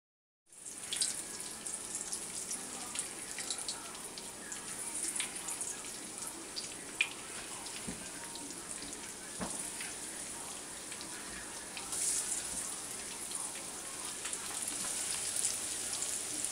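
Breaded zucchini slices frying in oil in a frying pan: a steady sizzle with scattered crackles. It starts abruptly about half a second in, with two short knocks near the middle.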